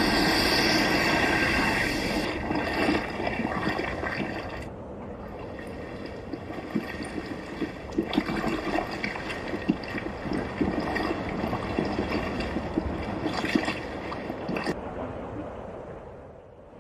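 Running water: a stream gurgling and trickling, with many small splashes. The sound changes abruptly a few times and fades down near the end.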